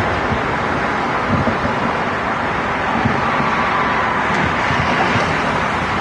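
Steady rush of city traffic and wind, with dull, distant firework booms thudding low a few times.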